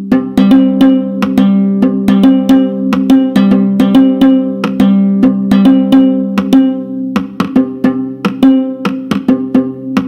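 Sampled ngoni, a West African plucked lute, from a Kontakt library playing a quick repeating plucked pattern at 140 BPM, about four to five sharp plucks a second over low ringing notes. The low notes thin out for a few seconds near the end, then come back.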